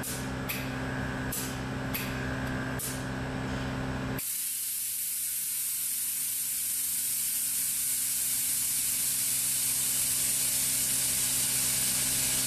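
An onboard air compressor runs with a steady hum and a few short clicks. About four seconds in it stops, and a steady hiss of air venting takes over as the air springs are deflated through the wireless air spring controller.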